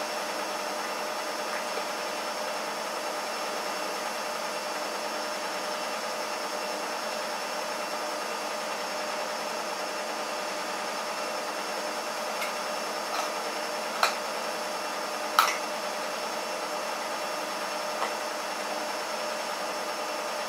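A Shar-Pei puppy crunching a raw chicken rib bone: a handful of sharp cracks in the second half, the loudest a little past the middle. A steady hiss and hum sits under them.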